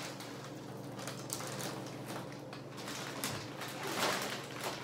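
Rummaging in a kitchen cabinet: packages and boxes knocking and rustling, loudest about four seconds in as a bag of cereal is pulled out. A steady low hum runs underneath.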